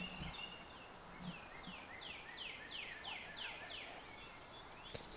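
A songbird singing a run of six or seven clear notes, each falling in pitch, a few a second, after a short high trill; other birds chirp softly around it. A single sharp click comes near the end.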